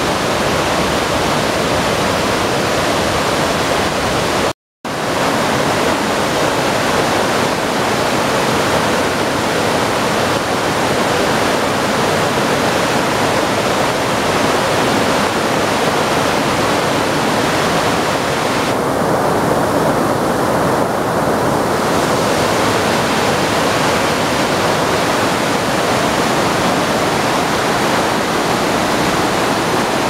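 Steady, loud rush of a muddy, rain-swollen river pouring over boulders and a waterfall. The sound cuts out for a moment about five seconds in.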